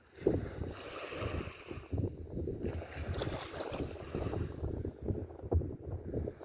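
Sea water washing, heavily overlaid by wind buffeting the microphone. A brighter hiss of water swells up about a second in and fades out before the three-second mark.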